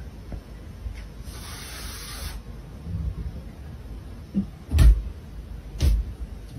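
Two sharp knocks about a second apart as a cat's paws strike the glass panel of a wooden cabinet door, over low handling noise, with a brief hiss of noise about a second in.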